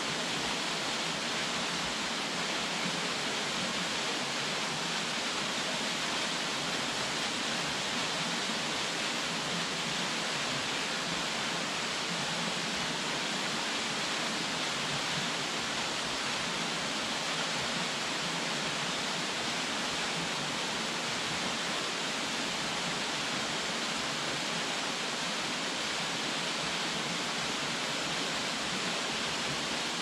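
Minoo Falls, a tall waterfall, pouring steadily into its plunge pool: a constant, even rushing hiss of falling water.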